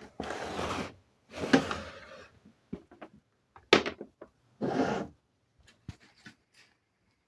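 Handling noises: four short scraping or rustling bursts with sharp knocks in between, not the steady run of a motor.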